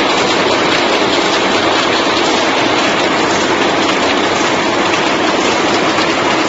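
Automatic chewing gum wrapping machine running at speed, its rotary wrapping head giving a steady, rapid mechanical clatter.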